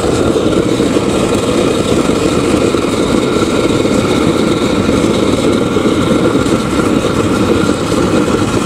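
Homemade oil-fired furnace burner running flat out: a loud, steady roar of the burning oil and forced air, with a faint steady whine riding over it.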